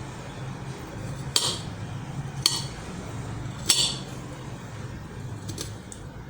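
Kitchen utensils clinking against dishware: three sharp, ringing clinks spaced about a second apart, then a couple of faint ticks, over a steady low hum.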